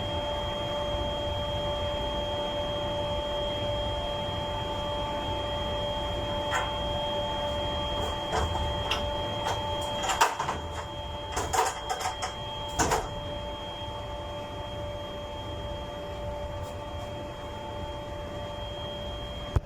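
Steady machinery hum with several fixed tones over a low rumble, and a short run of sharp clicks and knocks in the middle from handling a light fixture during a lighting replacement.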